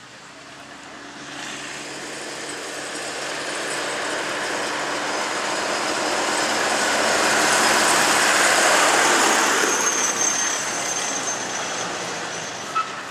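A farm tractor's engine running as it drives past, growing steadily louder to a peak about eight or nine seconds in, then fading away.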